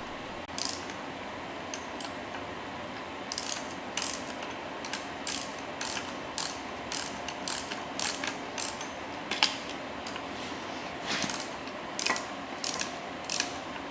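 Hand ratchet clicking in short strokes at irregular intervals as the nut fixing the crank arm onto the wiper motor shaft is tightened.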